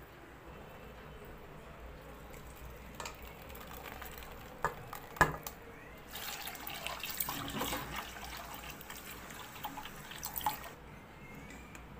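Water running and splashing through cooked tapioca pearls in a metal mesh strainer as they are rinsed, for about five seconds in the second half. Before it come a few sharp knocks, the loudest about five seconds in, with a couple of clicks again near the end of the rinse.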